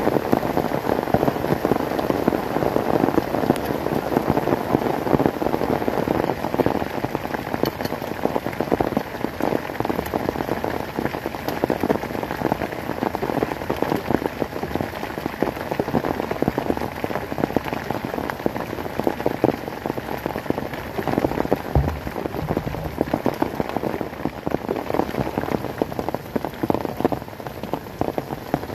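Heavy rain falling steadily, a dense crackle of drops striking the ground and surfaces close by.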